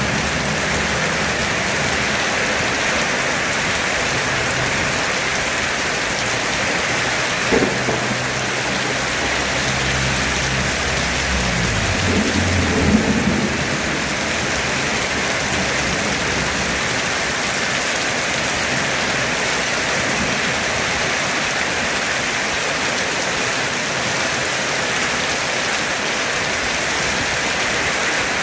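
Heavy rain pouring steadily, with thunder rumbling low under it through the first half. There is a sharp crack about a quarter of the way in and a louder clap near the middle before the rumble dies away, leaving only the rain.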